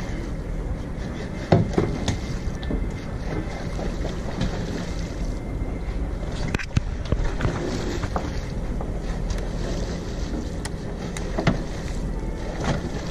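Wind buffeting the microphone over a steady low rumble on a fishing boat, with three sharp knocks: about a second and a half in, about halfway through, and near the end.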